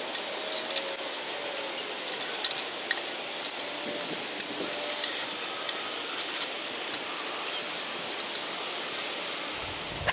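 Scattered light metal clicks and taps as a mailbox arm bracket and its screws are handled and fitted against an aluminum post, over a steady hiss.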